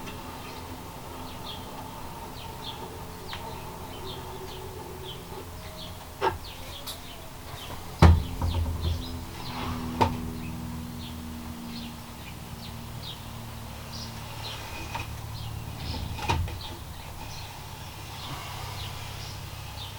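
Several sharp knocks of wooden pieces being handled during shelf assembly, the loudest about eight seconds in with a brief clatter after it. Birds chirp throughout over a steady low hum.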